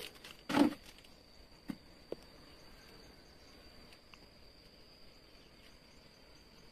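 Faint, steady high-pitched trill of a cricket, with a short bump about half a second in and a couple of light clicks around two seconds in.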